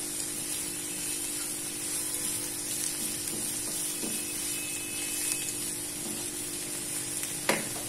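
Shredded cabbage and capsicum sizzling in a little olive oil in a nonstick wok over full heat, a wooden spatula stirring and scraping them through the pan. A single sharp knock about seven and a half seconds in.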